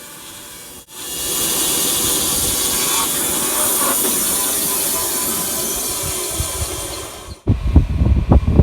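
A loud, steady hiss starts about a second in and cuts off abruptly near the end. A low, uneven engine rumble follows.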